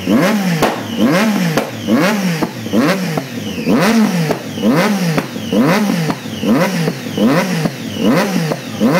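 Triumph Daytona 675's inline three-cylinder engine through a race-version Arrow exhaust, revved in about a dozen quick, evenly spaced throttle blips, each rising and falling in pitch.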